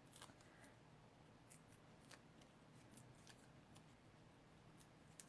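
Near silence with faint, scattered small clicks and snips of hand crafting work: small craft scissors and tiny foam adhesive dimensionals being cut and handled.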